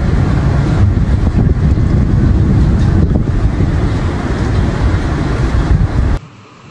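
Tornado wind buffeting the phone's microphone: a loud, fluttering low rush that stops abruptly near the end.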